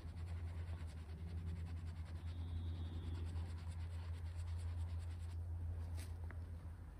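Quick scratchy rubbing strokes of a hand-held pad scrubbing the steel blade of a pair of loppers clean, over a steady low hum. The rubbing stops about five seconds in, followed by a single sharp click.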